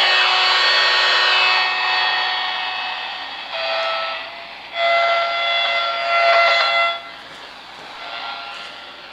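AM radio tuned to an empty static band picking up electromagnetic interference from a USB power adapter under electronic load: a loud hissing buzz made of several steady whining tones. It weakens, comes back strongly twice in the middle, then drops away near the end.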